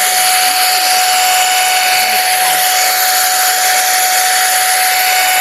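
Electric hot air brush (hair dryer styler) running: a steady rush of blown air with a constant whine from its motor.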